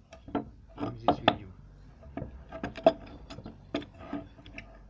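Metal parts of a dismantled Hyundai Solaris drive-belt tensioner being handled, with a quick series of sharp clinks and knocks, some with a short metallic ring.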